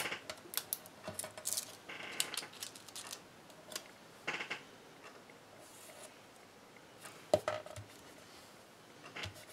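Quiet hand handling of paper and card: scattered light clicks and ticks with a short rustle about two seconds in, as a small paper die-cut with adhesive on its tip is set on a card and pressed down with the fingertips.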